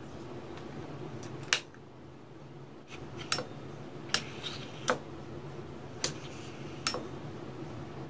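Six sharp clicks, mostly in pairs less than a second apart, over a low steady hum: a 24 V DC plug-in relay pulling in and dropping out as the air cylinder's piston magnet is slid by hand past a 2-wire reed switch, switching the relay coil on and off.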